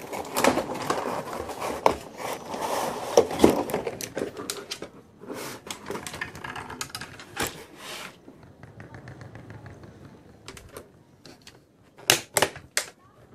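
Hard plastic toy pieces clattering and clicking as they are handled, busy and dense for the first five seconds, then sparse, with three sharp clicks near the end.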